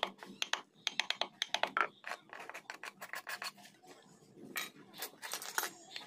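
Hand-held wood chisel scraping and paring teak, in quick runs of short scratchy strokes with a brief lull about two-thirds of the way through.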